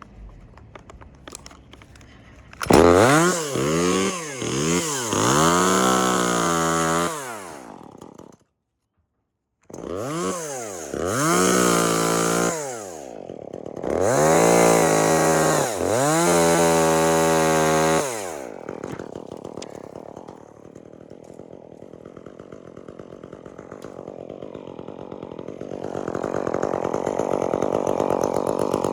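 Chainsaw revved hard in repeated surges, its pitch rising and falling as it cuts pieces off a dead birch; the sound drops out completely for about a second and a half in the middle. After about eighteen seconds it falls back to a lower, steadier running that slowly builds again near the end.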